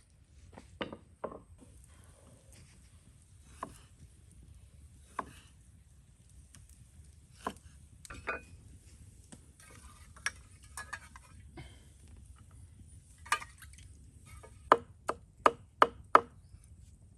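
Knife chopping food on a cutting board: single cuts spaced a second or more apart, then a quick run of about six chops near the end.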